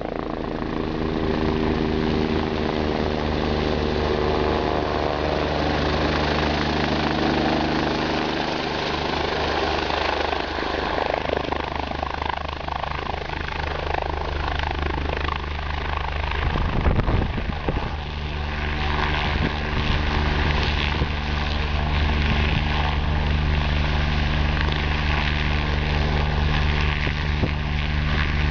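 Rescue helicopter's turbine and rotors running loud and steady as it comes in and settles on the snow nearby. About two-thirds of the way through, a brief blast of rotor wash buffets the microphone.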